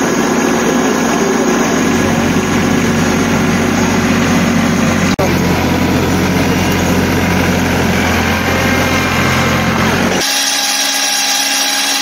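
New Holland TC33D compact tractor's diesel engine running steadily as the tractor moves, with a strong low hum. Near the end it gives way abruptly to a cordless drill's motor whining.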